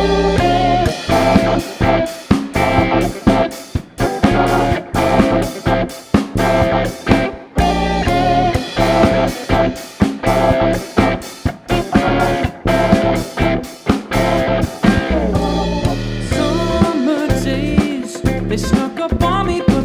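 Live funk band playing an instrumental passage: drum kit keeping a steady beat under bass and electric guitar lines.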